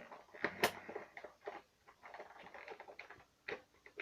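Light, irregular clicks and taps of a vinyl Funko Pop figure and its cardboard box being handled, with one sharper click about two-thirds of a second in.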